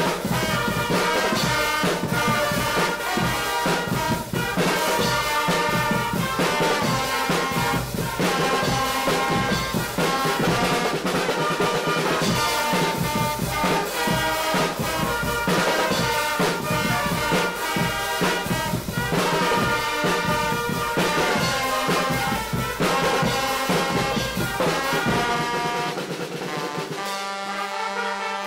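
Guggenmusik carnival band playing live: trumpets and trombones over a drum kit, big bass drums and cymbals, with a steady beat. Near the end the beat stops, leaving the horns holding notes.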